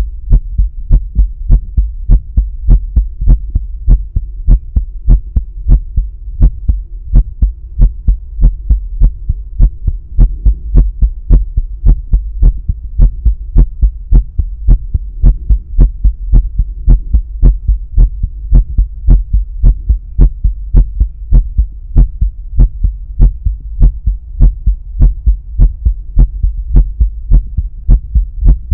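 Man's heartbeat heard through a stethoscope placed at the pulmonic area: steady, regular thumping beats, with a faint steady hum underneath.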